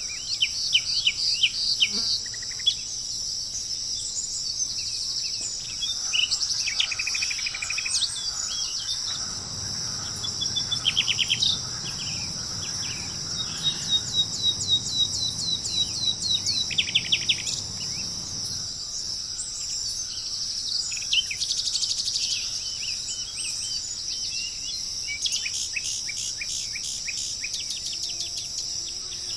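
A steady high-pitched drone of insects, crickets or similar, with several birds calling over it in repeated chirps and short rapid trills.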